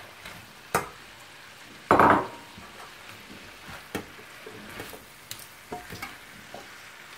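A metal utensil stirring chicken and chopped spring onions in a frying pan: scattered clicks and scrapes against the pan over a faint sizzle, with one louder scrape about two seconds in.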